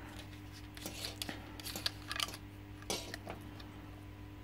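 Small plastic clicks and scrapes from a submersible aquarium pump's plastic housing handled in both hands, a scatter of light knocks through the middle.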